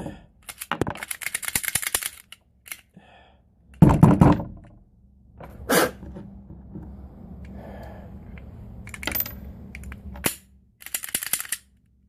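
Clicks and rattles of a Glock 43 pistol being worked by hand, its slide and action manipulated after it has failed to fire from being frozen in ice water. A quick run of clicks comes early, a heavier thump about four seconds in, then single clicks and a short rattle near the end.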